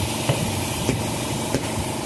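Three sharp hammer blows, about two-thirds of a second apart, struck on a motorcycle tire to help seat its bead. An air compressor runs steadily underneath while the tire is aired up.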